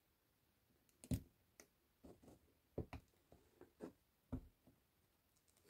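Scattered short clicks and taps of a jumper wire's leads being pressed into a solderless breadboard's contact holes, the loudest about a second in.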